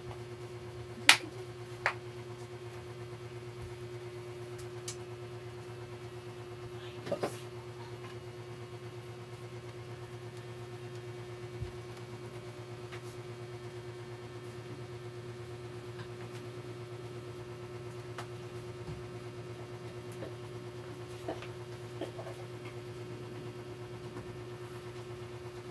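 Scattered sharp clicks and taps of small laptop parts being handled and fitted during reassembly, over a steady low electrical hum. The loudest click comes about a second in, with a short cluster of clicks near the middle.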